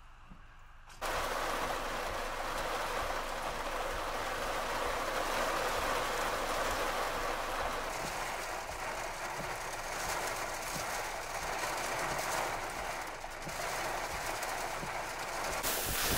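Heavy, wind-driven rain pouring down in a steady hiss with wind buffeting, starting suddenly about a second in after a near-quiet moment.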